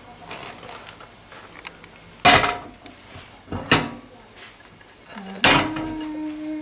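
White ceramic baking dish knocked and shifted on a gas stove's iron grate: three sharp clanks about a second and a half apart, the last one ringing on.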